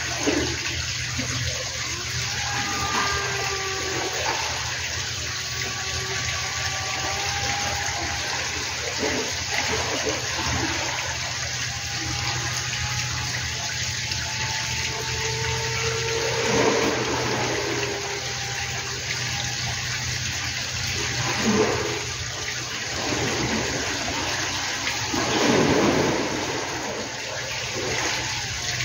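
Steady rushing outdoor hiss, with a faint thin whine that comes and goes and drifts slightly in pitch: the electric motor of a distant Sky Surfer X8 plus RC plane. A few short louder swells break through near the middle and end.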